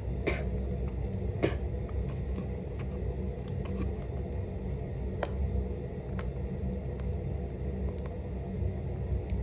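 Crinkling and sharp clicks of a plastic eyeliner package being pulled open by hand and with the teeth, over a steady low rumble.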